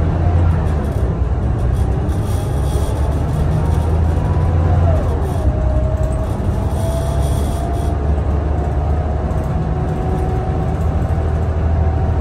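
Scania L94UB city bus driving, heard from inside the passenger cabin: a steady low drone with a whine that slowly rises in pitch, drops once about five seconds in, then climbs again.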